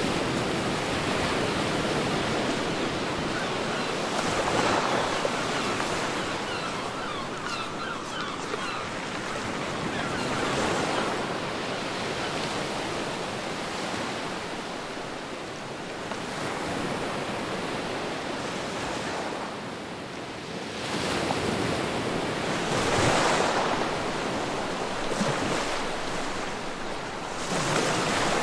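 Ocean surf on a beach: a continuous wash of water with waves swelling and breaking every several seconds, the loudest surges about four, ten, twenty-two and twenty-seven seconds in.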